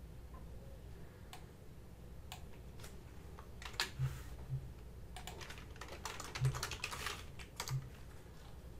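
Typing on a computer keyboard: scattered keystroke clicks, with a quicker run of keys about six to eight seconds in.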